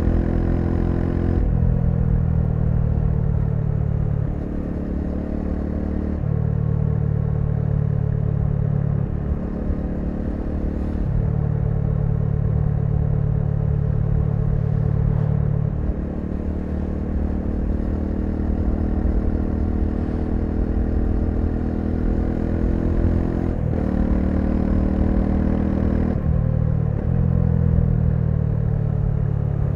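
Bajaj Dominar 400's single-cylinder engine running on the move, its note stepping up and down every few seconds as the throttle is opened and eased off.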